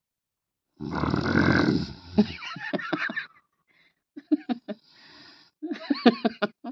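A man snoring loudly: one long rough snore about a second in, then bursts of short, broken, choppy snore sounds.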